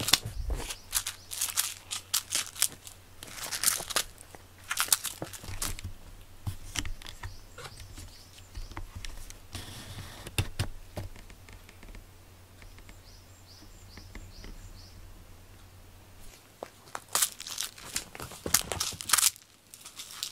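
Rustling and crinkling with scattered light clicks and knocks, busy for the first several seconds and again near the end, with a quieter stretch between that holds a faint run of quick high ticks.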